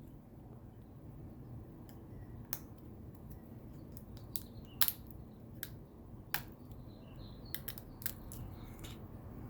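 Scattered small sharp clicks and taps of small hand tools working on an opened iPhone 8, about ten irregular clicks over a faint low hum.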